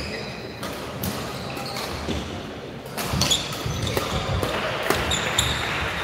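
Badminton doubles rally: rackets striking the shuttlecock and court shoes squeaking on the hall floor, busier from about halfway in.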